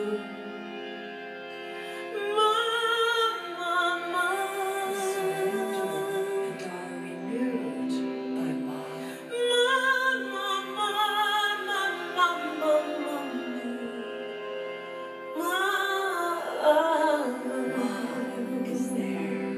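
Background music: a woman singing a slow chant in three wavering phrases over a steady drone, which carries on alone in the gaps between the phrases.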